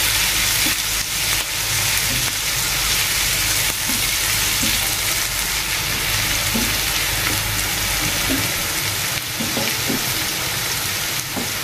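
Oil sizzling steadily in a nonstick frying pan as sliced onions, green chillies and ginger-garlic paste fry, stirred with a silicone spatula.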